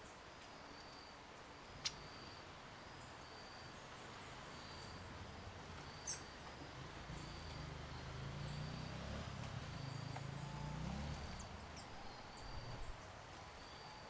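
Outdoor garden ambience: a short, high chirp repeats about every three-quarters of a second over a background hiss. A low rumble swells in the middle, and there are two sharp clicks, about two and six seconds in.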